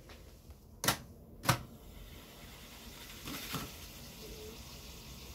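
Akai GX-210D reel-to-reel tape deck: two sharp mechanical clicks from its controls about a second in, then a faint steady whir as the reels spin in fast wind.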